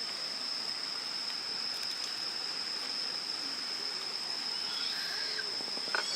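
Babbling stream running steadily, with an insect's continuous high-pitched trill over it. A couple of sharp clicks near the end.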